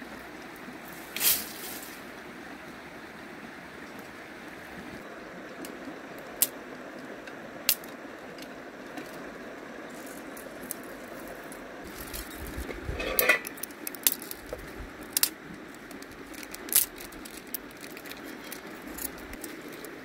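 River water flowing steadily over stones, with sharp snaps and clatters of dry twigs and sticks being broken and laid for a fire; the loudest clatter comes about a second in, with a cluster of snaps around the middle.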